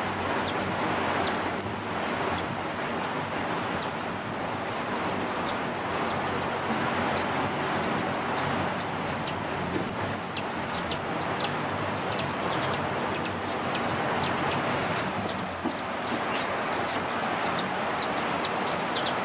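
A swarm of hummingbirds at feeders: a continuous high, shrill buzzing trill from many beating wings that swells and fades as birds come and go, with scattered short high ticks.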